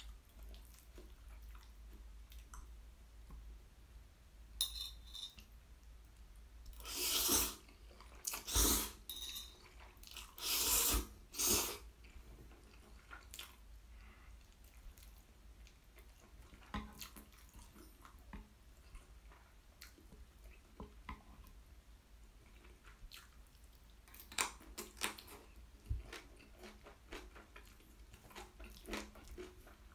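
Close-miked eating of thick black-bean instant noodles that have turned sticky: a few loud slurps between about seven and twelve seconds in, then quieter wet chewing and mouth clicks.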